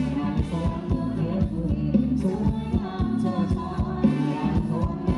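Thai ramwong dance band music: a singing voice over a steady drum beat.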